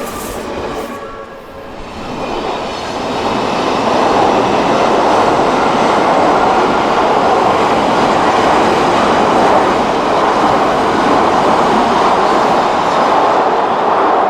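Odakyu Odawara Line electric train passing over a level crossing. The rumble and clatter of its wheels on the rails build over the first few seconds, then stay loud and steady.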